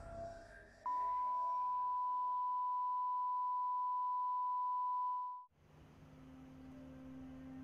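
A steady pure electronic tone at about 1 kHz, like a test beep, starts abruptly about a second in and holds unchanged for about four and a half seconds before cutting off. Then a low, steady drone of several held tones fades in.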